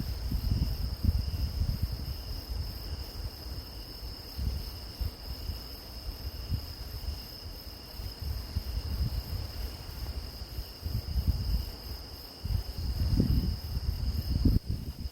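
Crickets and other grass insects trilling in a steady, high continuous chorus, under an irregular low rumble that swells and fades in gusts.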